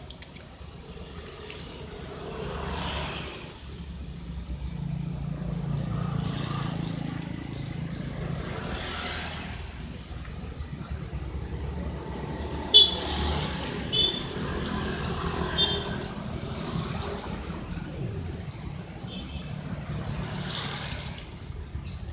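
Street traffic passing on a wet road, vehicles swelling and fading over a steady low rumble. There are three short horn toots about halfway through, the first the loudest.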